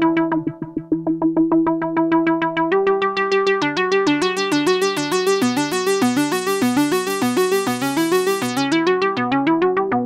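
Arturia MatrixBrute analog synthesizer playing a fast, repeating pattern of short notes stepping up and down. The tone grows much brighter from about three seconds in and turns duller again near the end.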